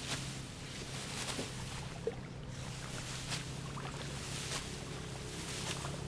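A steady low engine hum, with a soft swish about once every second or so.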